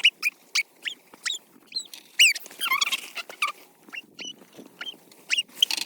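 Labradoodle whining in a quick run of short, high-pitched whimpers while eager for treats.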